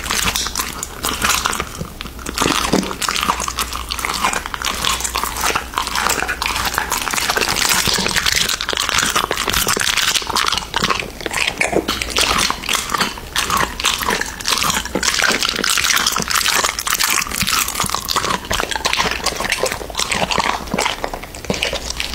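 Golden retriever chewing and biting raw meat, a dense, continuous run of wet crunching and smacking clicks, with licking at the wooden plate it eats from.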